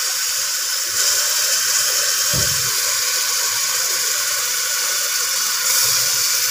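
Raw minced meat (keema) sizzling in hot oil with browned onions in a pressure-cooker pot: a steady, loud hiss that grows a little about a second in and again near the end. A single soft low thump about two and a half seconds in.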